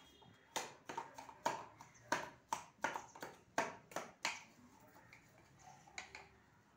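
A stick pounding wood apple pulp in a small steel tumbler: a quick run of knocks, about three or four a second, that stops a little past four seconds in, followed by a couple of lighter knocks near the end.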